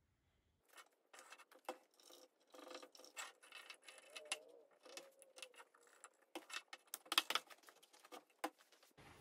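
Wooden blocks and dowels being handled and fitted together on a steel workbench: a run of light knocks, taps and rubbing, with a cluster of sharper knocks about seven seconds in.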